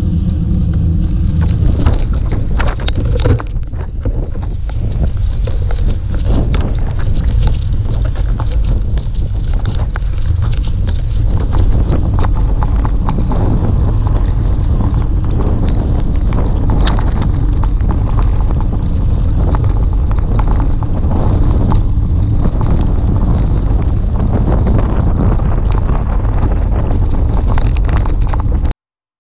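Wind buffeting an action camera's microphone on a mountain bike riding a rough, wet gravel track. The rumble carries constant rattling and knocking from the bike over the stones. The sound cuts off suddenly just before the end.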